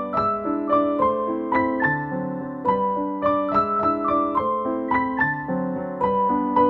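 Background piano music: a gentle melody of single notes, a few to each second, over sustained chords.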